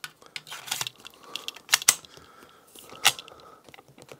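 Light metallic clicks of .45 ACP cartridges being handled and pressed into the De Lisle carbine's magazine, with two sharper clicks in quick succession a little before two seconds in and another about three seconds in.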